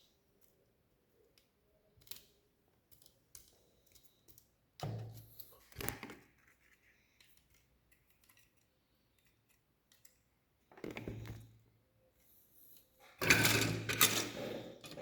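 Plastic Lego Technic pieces being handled and fitted together: scattered small clicks, with short louder clattering bursts about a third of the way in and again past two-thirds, and the densest clattering near the end.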